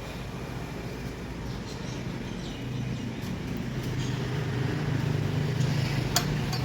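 Steady low engine hum that grows louder, with one sharp click near the end.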